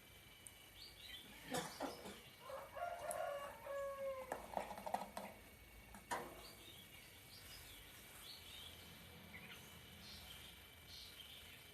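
Short, scattered chirping notes of a yellow-vented bulbul, heard faintly. A rooster crows about two and a half seconds in, in one drawn-out call that falls at its end.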